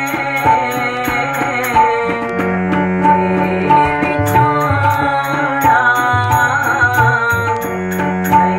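Gurbani kirtan, a Sikh devotional hymn: a woman sings over a hand-pumped harmonium's held reed notes, and a tabla keeps a steady rhythm of ringing high strokes and deep bass strokes.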